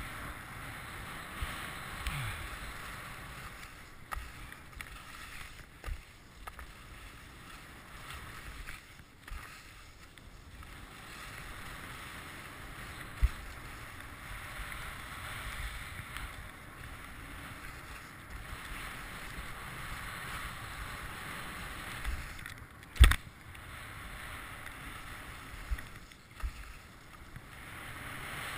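Skis hissing and scraping over packed snow on a downhill run, the swish rising and falling with the turns. Scattered knocks run through it, the sharpest and loudest about three-quarters of the way in.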